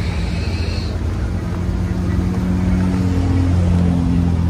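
Squarebody Chevy Suburban's engine idling with a deep, steady drone that gets slightly louder about three seconds in.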